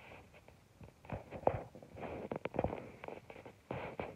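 A cat pawing and scratching at the gap under a door: irregular taps and short scraping rustles.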